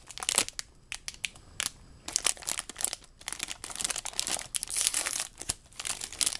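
Metallic anti-static bag crinkling and crackling as it is opened and handled by hand, the crackles thickest in the second half.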